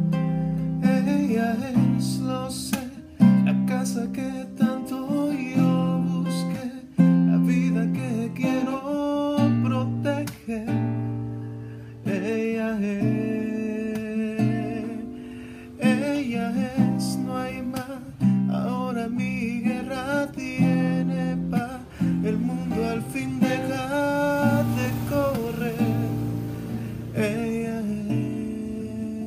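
Solo classical guitar played by hand: fingerpicked notes and strummed chords that ring out and decay between strokes, with sharp strums every second or two.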